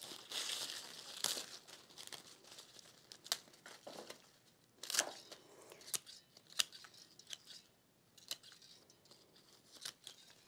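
Fresh roses being handled and set into an arrangement: soft rustling and crinkling of leaves and petals, with scattered sharp clicks and snaps.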